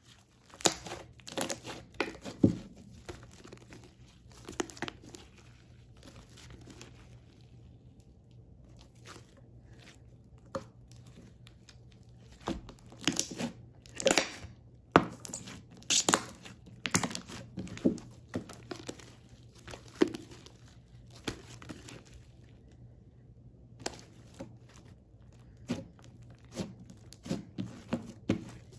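Thick, glossy brown slime being stretched, folded, squeezed and pressed by hand, giving a run of irregular sharp clicks and pops in clusters, with a couple of short pauses.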